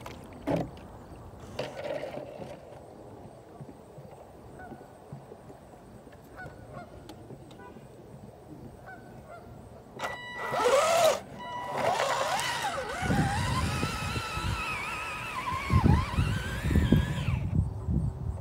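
Loud honking calls: a short one about ten seconds in, then a longer wavering one lasting about five seconds, with low thumps underneath.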